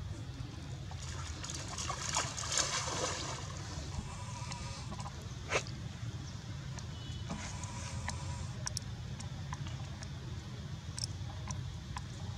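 Pool water splashing and dripping as a young macaque swims and clambers out, with the longest stretch of splashing about a second in and a shorter one around the middle. A steady low rumble runs underneath.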